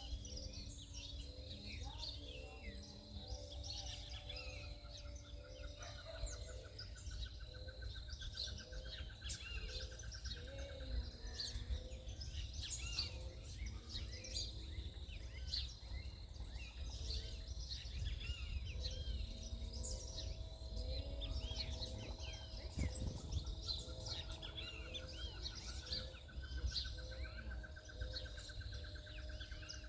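Several backyard birds chirping and calling, with many short high chirps throughout. A long, even trill comes twice, and a short low note repeats about once a second over a steady low rumble.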